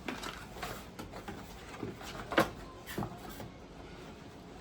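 Camera box and packaging being handled and opened: scattered rustles and small clicks, with a sharper knock about two and a half seconds in and another a little after.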